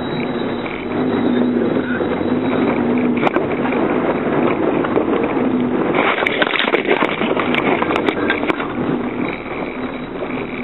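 Off-road SUV engine running as it drives over a rough dirt track, heard from inside the cabin. About six seconds in it gets louder and noisier, with several sharp knocks and rattles as the vehicle lurches over the uneven ground.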